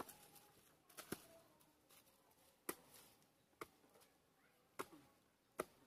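A long-handled hoe chopping into wet mud and earth: about six short, separate strikes, spaced unevenly about a second apart.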